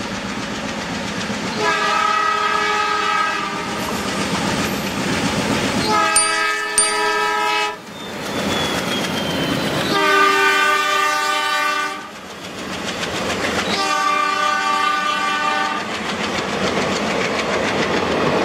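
Indian Railways ALCo diesel locomotives sounding their horns in four blasts of about two seconds each, over the steady noise of the engines and the train running on the rails. The sound jumps abruptly twice, where separate recordings are cut together.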